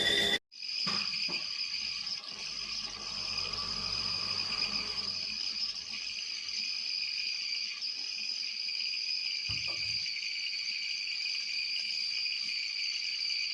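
Stainless steel whistling kettle whistling at the boil: one steady high whistle, with a couple of faint knocks.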